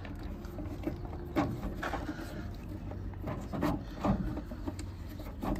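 Bonnet release lever under the dashboard of a Tata 407 Gold pickup being tugged by hand: a handful of short, scattered clicks and knocks over a low steady rumble. The pulls are not releasing the bonnet.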